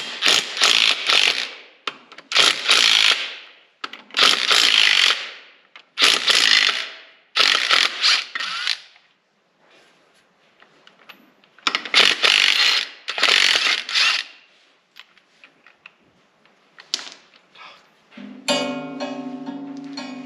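A socket ratchet clicking in about seven runs, each a second or two long, as the bolts holding a John Deere 4010 tractor's flywheel are turned out. Music starts near the end.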